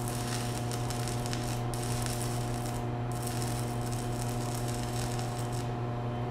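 Stick (MMA) welding arc from a VEVOR 140A inverter welder set to 60 amps on 1/8-inch steel: a steady sizzling hiss with two brief breaks, cutting off shortly before the end. A steady low hum runs underneath.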